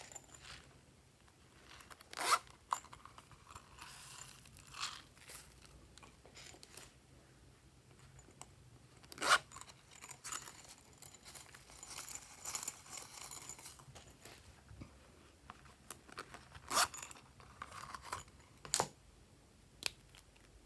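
Small plastic containers being handled while sequins, sprinkles and foam beads are shaken out of them onto slime. It comes as scattered sharp clicks and taps with crinkly rustling between them.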